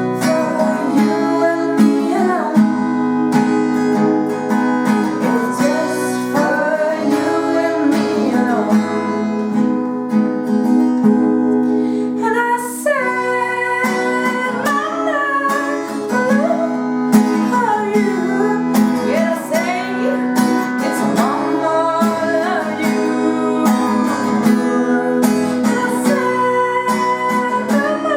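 An acoustic guitar being strummed with a voice singing a melody over it.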